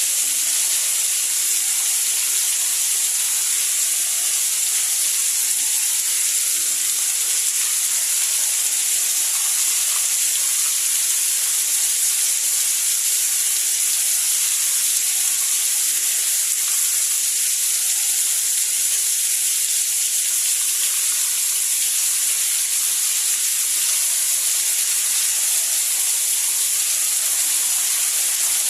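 Steady rain falling, a continuous even hiss weighted toward the high end with little low rumble.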